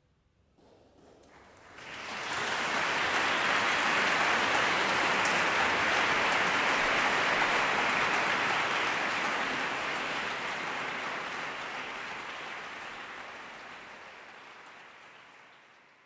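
Audience applauding. The clapping starts faintly, swells to full strength about two seconds in, holds steady, then fades out gradually over the last several seconds.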